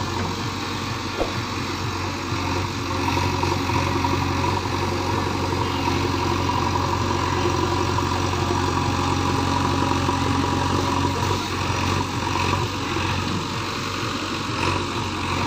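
JCB 3DX backhoe loader's diesel engine running steadily, with a single sharp knock about a second in.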